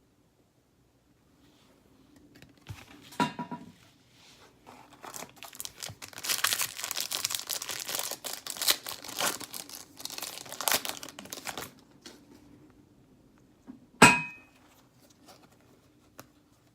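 Foil hockey card pack wrapper being torn open and crinkled for several seconds, with a single sharp click about two seconds after the crinkling stops.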